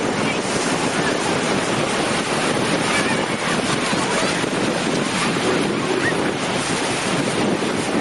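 Steady rush of sea waves washing on the beach, with strong wind buffeting the microphone.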